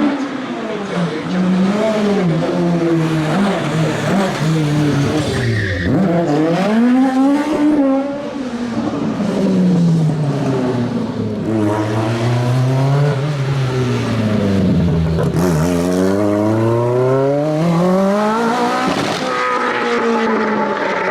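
Rally car engine revving hard and dropping back again and again as the car is driven, its pitch rising and falling in repeated swoops, over a rough haze of tyre and road noise.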